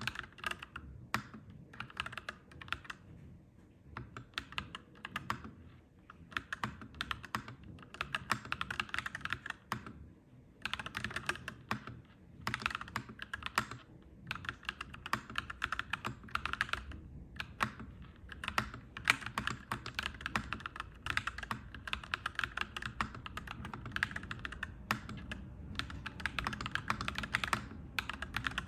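Clacky mechanical keyboard being typed on in quick runs of keystrokes, broken by short pauses. A low rumble underneath grows louder in the second half.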